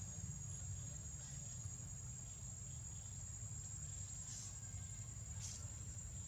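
Insects chirring in a steady high drone over a low steady rumble, with two brief soft rustles about four and five and a half seconds in.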